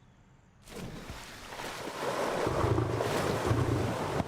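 Lion roaring: a run of deep, low calls starting about two and a half seconds in, over wind noise on the microphone that rises about a second in.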